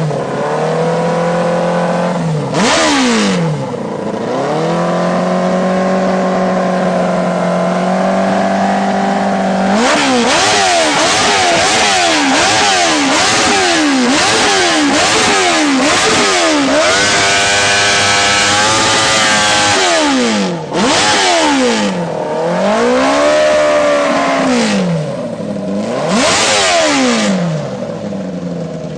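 Motorcycle engine revved hard over and over. It holds a high rev for several seconds, then blips up and down quickly about once or twice a second, holds a long high rev, and ends with slower rises and falls.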